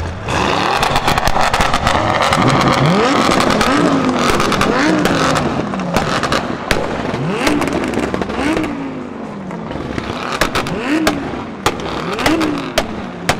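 Turbocharged BMW E46 revving in a series of quick blips, its pitch rising and dropping back about seven times, over a loud rushing noise in the first few seconds. Near the end, sharp pops and cracks from the exhaust come in quick succession.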